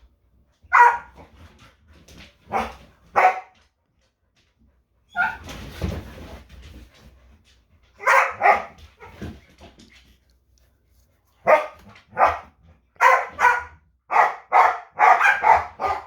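Pet dogs barking during play-chasing, in short single barks that come faster, in a quick run, near the end. A longer, rougher noise comes about five seconds in.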